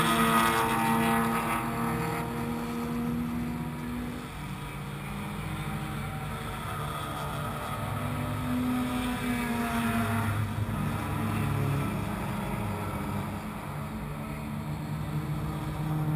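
Stock car's engine running at idle, its pitch rising and falling gently a couple of times.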